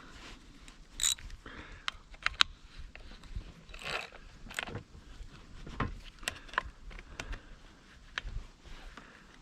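Irregular metallic clicks and short scrapes of hand work on a chainsaw, fitting and tensioning a replacement chain on the bar.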